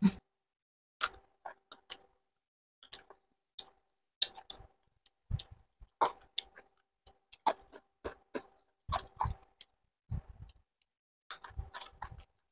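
Mouth sounds of eating chicken feet by hand: irregular wet clicks, lip smacks and small crunches from chewing and sucking, a few each second with short gaps.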